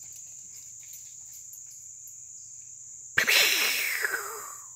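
Insects chirring steadily and high-pitched. About three seconds in, a sudden loud rush of noise cuts in and fades away over a second and a half.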